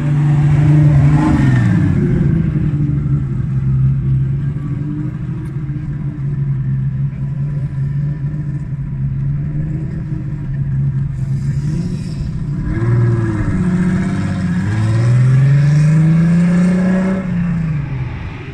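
BMW E36 engine running at a low, steady idle as the car rolls slowly past, its revs dropping about a second in. In the last few seconds the revs rise and fall several times.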